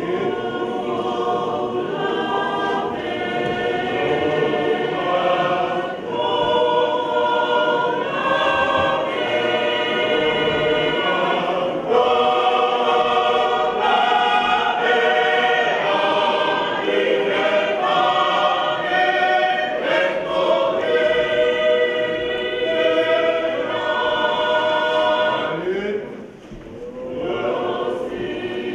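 Large Tongan church choir singing a hymn in full harmony, on held chords that change every second or two. The singing breaks off briefly near the end, then comes back in.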